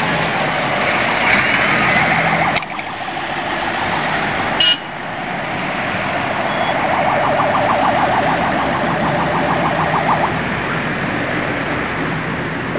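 Tram running along its line, heard from inside: a steady rushing noise of wheels and passing traffic. It drops suddenly a little before 3 s, there is a sharp click near 5 s, and a fast, even rattle of about six clicks a second runs for about three seconds in the second half.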